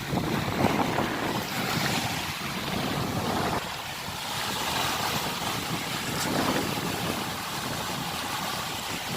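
Red Sea waves washing in, surging every second or two, with wind buffeting the microphone.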